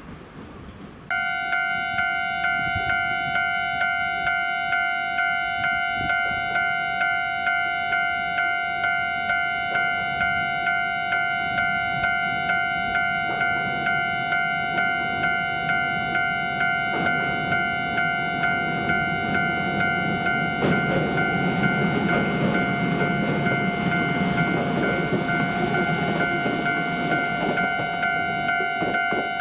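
A Japanese railway level-crossing alarm starts suddenly and rings its repeated electronic clang, about one and a half to two strokes a second. This is the warning that a train is approaching. In the second half a train's rumble swells beneath it.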